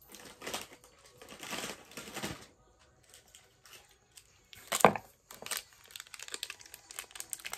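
Plastic candy packaging crinkling and rustling as it is handled. There is one sharp snap or click about five seconds in, then a run of small crackles.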